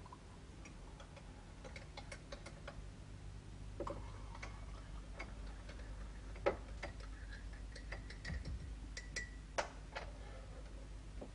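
Light, irregular clinks and taps of mugs, spoons and jars at a kitchen counter as instant coffee is made, with two louder clinks about halfway through and near the end.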